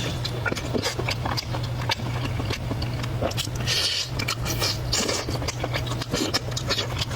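Close-miked eating: chewing and wet mouth smacks with many short clicks, a few louder bursts about halfway through, over a steady low hum.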